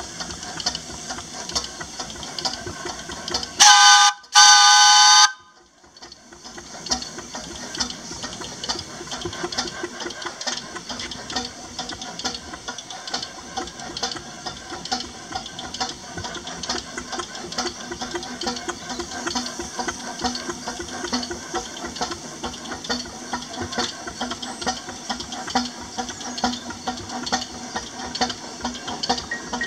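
4-inch scale Burrell miniature steam traction engine: its steam whistle gives two loud blasts about four seconds in, the second longer. Otherwise the engine runs with a steady, even exhaust beat over a hiss of steam.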